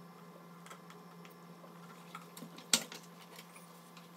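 Light handling clicks as oil is poured into an empty nonstick pot, with one sharp click a little under three seconds in, over a steady low hum.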